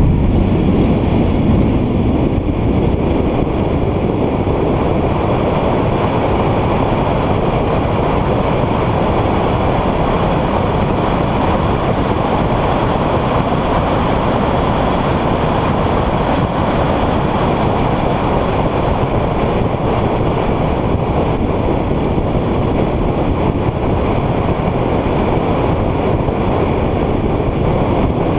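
Car driving at speed on a race circuit: a steady rush of engine, tyre and wind noise with no clear changes in pitch or level.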